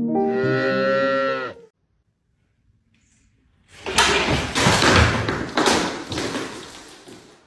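A few notes of piano music cut off, then after a short pause a loud, noisy clatter with several thumps about a second apart, fading away.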